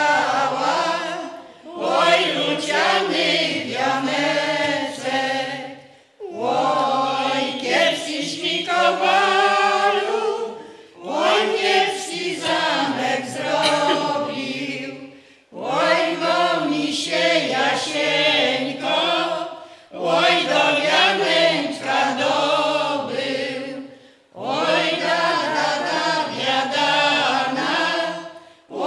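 Mixed choir of women's and men's voices singing a Polish folk song without accompaniment, in phrases of about four to five seconds with a short break for breath between each.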